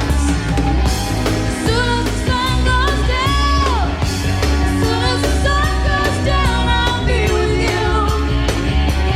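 Live pop-rock band playing a song: a female lead vocal over electric bass and drums, with one sung note sliding down about four seconds in. It is a live concert taken off an FM radio broadcast onto cassette tape.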